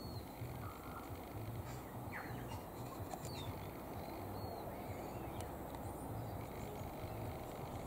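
Low steady background hum and hiss, with a few faint, short high chirps scattered through it.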